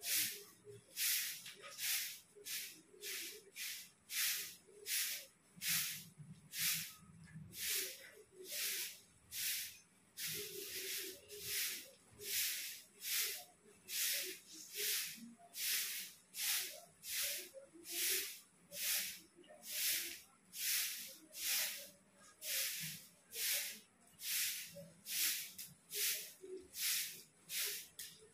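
Long-handled broom sweeping a concrete courtyard: a steady rhythm of short scratchy swishes, about three strokes every two seconds.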